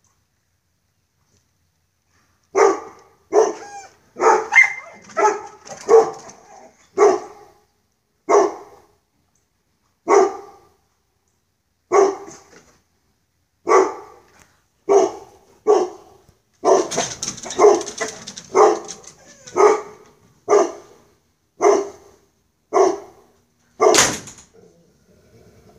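A dog barking over and over, roughly one bark a second, starting a couple of seconds in.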